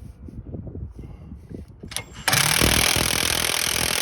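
A handheld power tool runs loudly in one burst of about two and a half seconds, spinning the stuck nut off a sway bar link, and the nut comes free. Before it starts there are light knocks of the tool being set on the nut.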